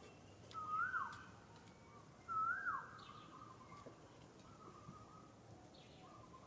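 An animal call repeated twice, each a short held note that swoops up and then drops sharply, followed by fainter, flatter notes at the same pitch.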